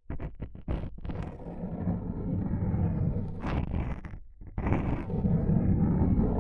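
Close-miked ASMR rubbing and scratching noise with a deep rumble, after a few quick taps at the start and a brief pause past the middle.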